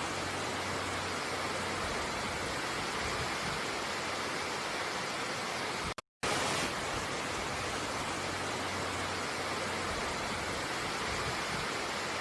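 A steady rush of water, cut off for a moment about six seconds in and then starting again.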